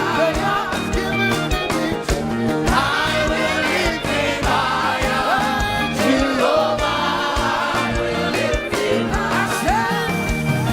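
Live gospel praise music: singers over a full band with drums keeping a steady beat.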